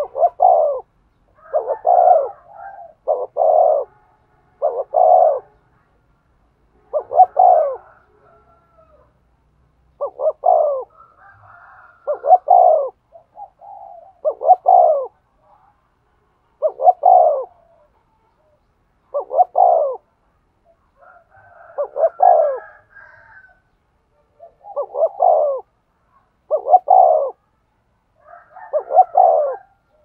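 Spotted dove cooing in short, repeated phrases about every two seconds: the urging 'thúc gù' coo.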